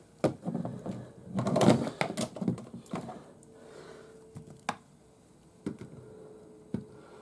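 Plastic toys being handled and set down: scattered sharp clicks and knocks, with a denser clatter about two seconds in.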